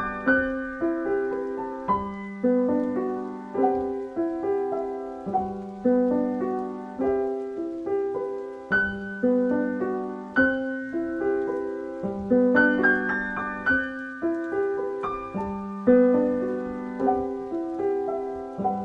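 Background music: a piano playing a gentle, repeating pattern of notes, each struck and fading away.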